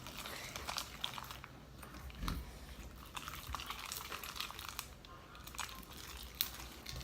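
Sticky, stiff homemade slime being lifted and worked with a small spoon, giving faint scattered crackles and clicks.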